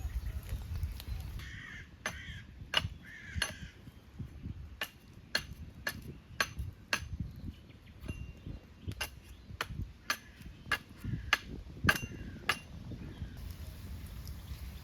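A run of sharp knocks, about two a second for some ten seconds, stopping near the end; the loudest falls shortly before they stop. A crow caws a couple of times as the knocking begins.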